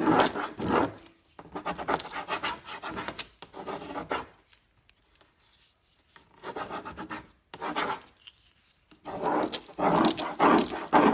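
A Prima furniture transfer sheet being rubbed down and worked loose on a painted fireplace screen: noisy rubbing in spurts, with a pause of about two seconds near the middle.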